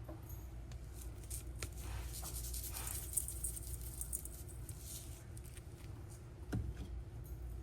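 Quiet food-prep handling: a soft shaking hiss of seasoning sprinkled onto raw shrimp, with light taps and clicks and one sharper tap about six and a half seconds in.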